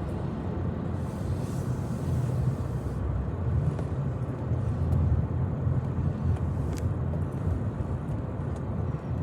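Steady low rumble of a car, with a faint click about seven seconds in.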